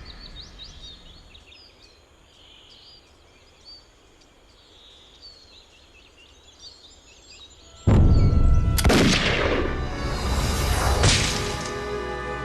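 Birds chirping faintly in the quiet. About eight seconds in, a sudden loud explosion with a deep rumble, then two more blasts about a second and three seconds after it.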